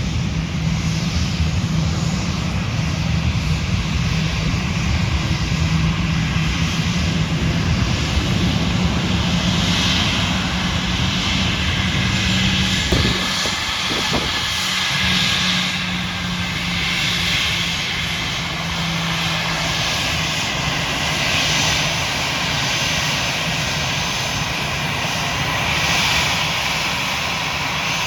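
Airliner engines running loud and steady. A low hum drops away about thirteen seconds in, while a higher hiss carries on.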